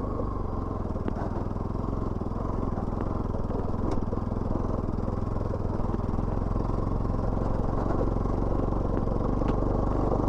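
Motorcycle engine running steadily while riding, with a few faint clicks.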